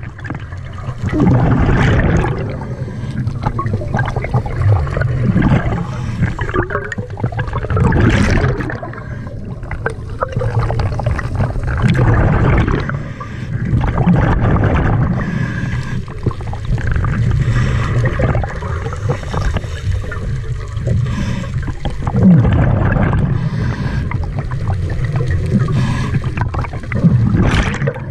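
Scuba diver's exhaled bubbles from the regulator, gurgling and rushing past the camera in surges that come and go every few seconds, with a sharper burst about 8 seconds in and another near the end.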